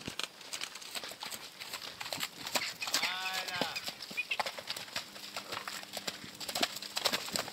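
Horses' hoofbeats on a sand arena, with a short wavering horse whinny about three seconds in.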